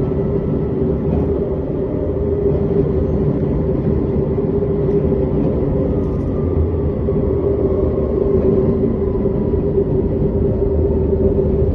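Tram's traction motor noise while running: a steady rumble with a strong constant hum, and a faint whine that slowly falls in pitch over the second half.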